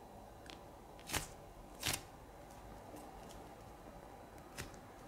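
iBloom koala squishy, a slow-rising foam toy with a tacky surface, squeezed and kneaded close to the microphone: faint soft squishing with a few short sticky crackles, the loudest about one and two seconds in.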